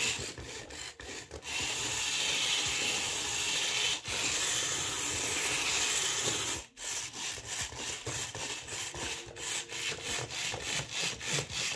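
Remote-controlled toy dinosaur's electric motors and plastic gears running as it moves across the floor on the wheels in its feet, its repaired leg mechanism working. A quick clattering rhythm plays at the start and again over the last few seconds, with a steadier whirring in between.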